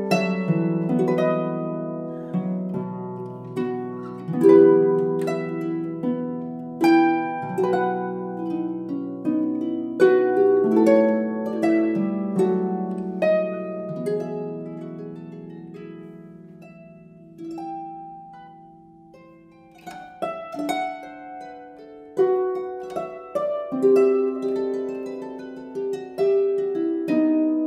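Background music of plucked strings, a slow melody over ringing chords. It thins to a few soft notes around the middle, then picks up again.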